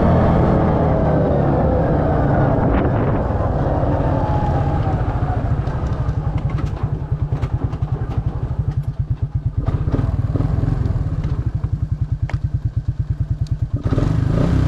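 ATV engine running: its revs fall away over the first few seconds and it settles into a steady, pulsing idle, with a few sharp clicks over the idle.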